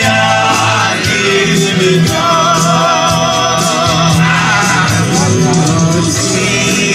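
Music with singing: a wavering melody line over a steady bass, with a light regular beat.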